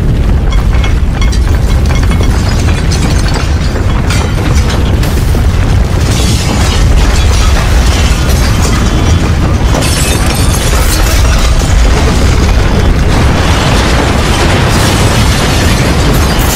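Earthquake sound effect: a loud, continuous, deep rumble with crashing noise over it, running without a break.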